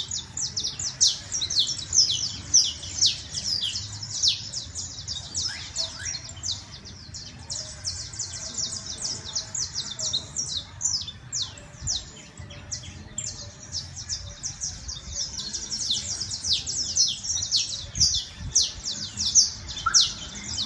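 Saffron finch (canario criollo) singing: a long, near-continuous run of rapid, high, sharp notes, busiest near the start and the end.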